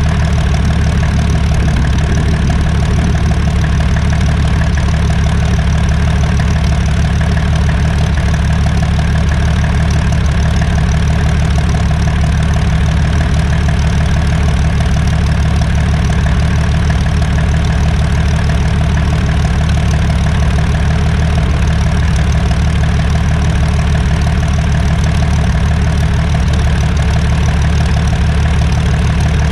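Fairchild PT-26 Cornell's Ranger inverted inline-six engine idling steadily.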